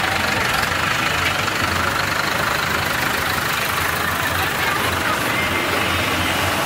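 Diesel engine of a large farm tractor running steadily at low revs, heard close up.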